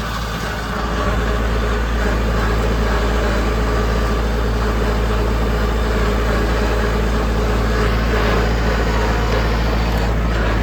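Tractor engine running steadily while it pulls a no-till drill planting through cover, a loud low hum that picks up slightly about a second in and then holds even.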